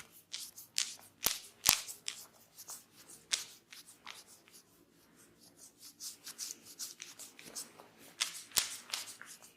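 Barber's hands working a head massage: a run of sharp snaps and taps, about two a second, thinning out in the middle and picking up again after about six seconds.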